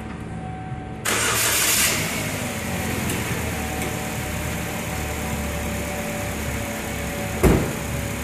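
A 2008 Chevy Cobalt's 2.2-litre Ecotec four-cylinder starting about a second in, rising briefly and then settling into a steady idle that runs smooth on its freshly replaced spark plugs. A car door is slammed shut near the end.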